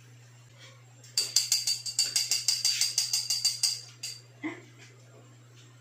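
A quick burst of rapid jingling percussion, about eight strokes a second for nearly three seconds, followed by a soft knock.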